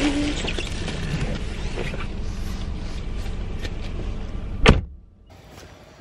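Steady low rumble of a car's idling engine and cabin noise, then one sharp loud thump of the car door shutting near the end, after which it goes much quieter.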